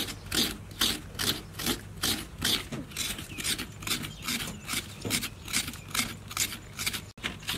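Fresh coconut flesh being scraped out of a half shell with a hand-held serrated metal coconut scraper: rhythmic rasping strokes, about two and a half a second.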